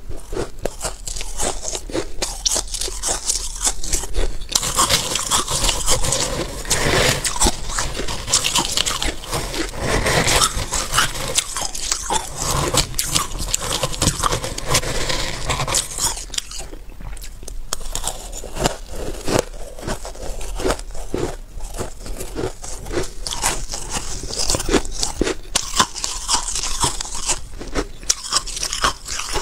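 Close-miked biting and chewing of powdery freezer-frost ice: dense, irregular crackly crunches, with a metal spoon scraping and scooping through the bowl of frost.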